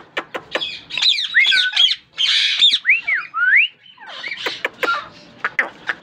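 Indian ringneck parakeets in a flock calling: a quick run of shrill chirps, a harsh screech about two seconds in, then a few whistled notes that glide up and down, and short sharp calls near the end.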